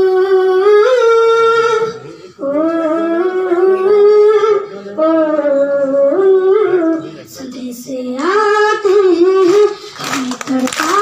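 A boy singing unaccompanied, with no clear words: long held notes that slide up and down, in phrases of about two seconds with short breaths between. About ten seconds in, a crowd starts clapping under the singing.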